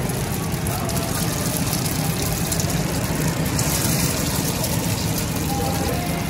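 Oil sizzling on a large flat tawa griddle as egg-battered tikkis shallow-fry, with a louder burst of sizzle about halfway through as another batter-dipped patty goes into the oil. A steady low hum runs underneath.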